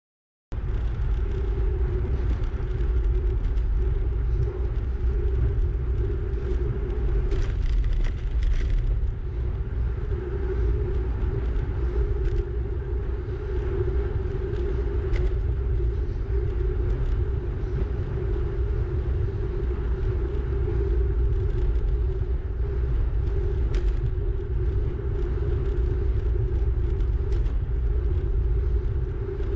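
Wind buffeting the microphone of a camera riding on a moving bicycle, a steady loud rumble that starts suddenly about half a second in.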